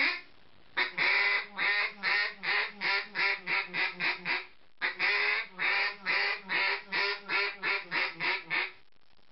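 Hand-blown custom duck call, very raspy and really loud, blown in two runs of quacks. Each run opens with a few long notes and speeds up into shorter, quicker ones.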